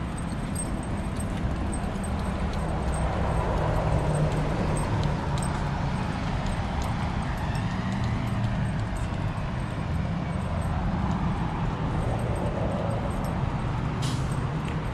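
Steady outdoor ambience dominated by a low rumble, with a faint murmur and light ticking throughout, as picked up by a small action camera moving along a busy walkway.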